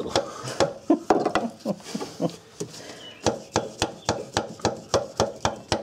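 A hammer handle tapping a retaining clip down onto the hydraulic clutch hose fitting of a 2001 Ford Escape: a series of irregular sharp taps, about two or three a second, coming faster in the second half.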